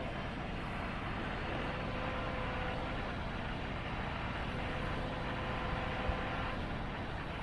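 Diesel engine of a Caterpillar 316EL excavator running steadily, with a faint whine that fades in and out.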